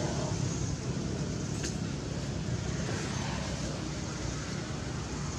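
Steady low outdoor rumble of background noise, with a faint click about one and a half seconds in.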